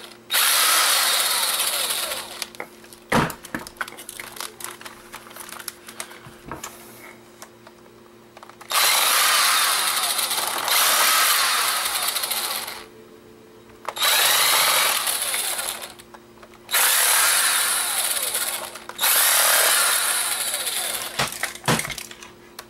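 Cordless power screwdriver running in about six bursts of roughly two seconds each, backing tiny screws out of a camcorder's casing. Between bursts come small clicks of handling and loosened screws, with a longer such stretch in the first third.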